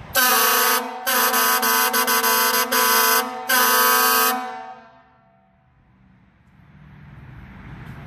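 Fire engine air horn sounded in taps and stutters: a short blast, a longer blast broken by quick stutters, and a final blast. The horn's trumpet is freshly flushed of bug remains and dirt clumps. The sound echoes briefly after it stops.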